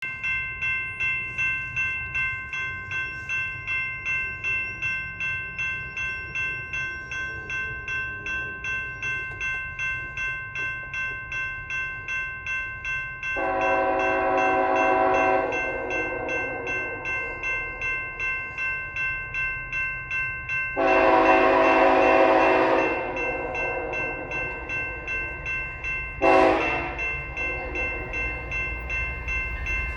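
Grade-crossing bell ringing about twice a second throughout. Over it the horn of CP ET44AC 7450, a GE diesel-electric locomotive, sounds two long blasts and a short one, the opening of the long-long-short-long crossing signal. The locomotive's low rumble grows louder as it approaches.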